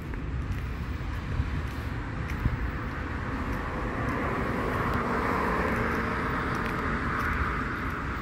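A vehicle passing over wind rumbling on the microphone: a steady rushing that swells from about three seconds in, is loudest a little past the middle, then eases off.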